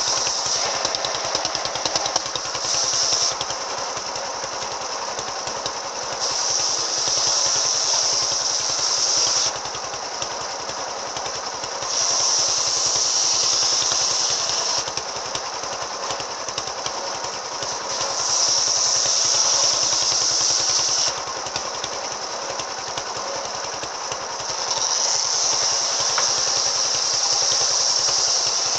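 Engine-driven circular saw fitted with an AKM blade, cutting timber in repeated passes. Every six seconds or so a louder, higher cutting sound rises for about three seconds, and the engine keeps running steadily between cuts.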